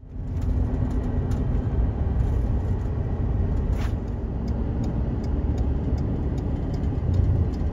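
Steady low rumble of a vehicle driving, heard from inside the cabin, with faint scattered ticks.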